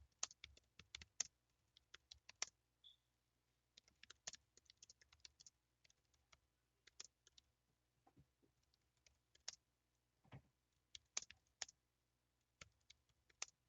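Typing on a Logitech K380 Bluetooth keyboard: faint, irregular key clicks with a few brief pauses. The keys are quiet.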